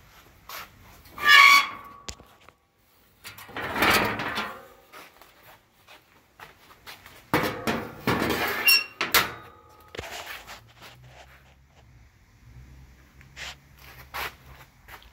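A few separate scrapes and squeaks, the loudest and most squeak-like about a second in, with more scraping around four seconds in and from seven to nine seconds. A faint low hum runs through the last few seconds.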